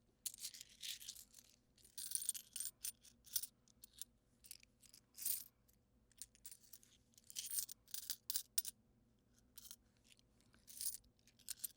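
Loose coins jingling and clinking against each other in short bursts with brief pauses between, as when change is shaken or sifted through by hand.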